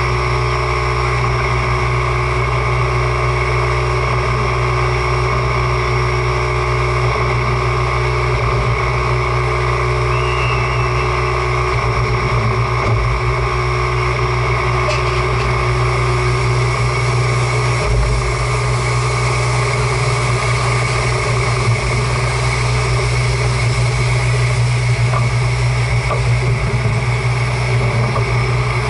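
OL49 steam locomotive standing with steam up, giving a steady hum with several steady tones over a continuous hiss.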